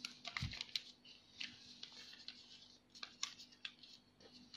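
A square of origami paper being handled and creased by fingers against a table: faint paper crinkles and small clicks, coming in a cluster in the first second and a few more later.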